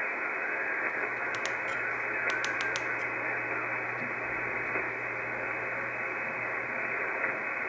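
Reuter RDR54 shortwave receiver putting out steady static hiss through its narrow upper-sideband filter while tuned across an empty stretch of the 20-metre amateur band, with no station heard. A few faint clicks come through between about one and a half and three seconds in.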